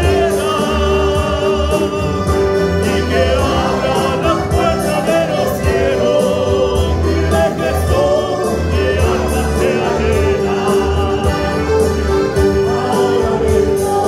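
Choir singing a gospel praise chorus with instrumental accompaniment: a steady bass and a regular beat under the voices.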